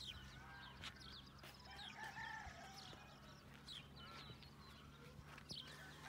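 Faint rural outdoor ambience: small birds chirping again and again, with a distant rooster crowing once about two seconds in, over a low steady hum.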